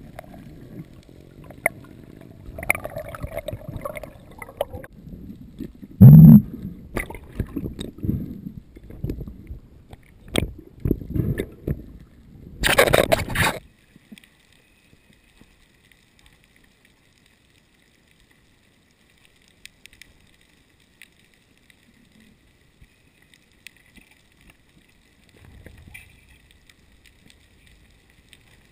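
Water sloshing and gurgling against an underwater camera housing near the surface, with a heavy thump about six seconds in and a loud rushing burst a little after halfway. Then it cuts off suddenly to a faint steady hiss as the camera is deep underwater.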